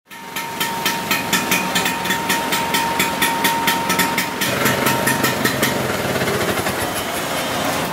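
Classic Vespa scooter's engine idling, with sharp, regular ticking about four times a second through the first five seconds. The low engine note grows stronger about halfway through.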